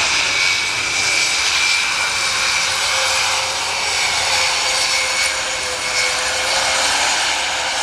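Airbus A400M's four Europrop TP400 turboprop engines running steadily during a display pass, a loud engine noise with a steady high whine over it.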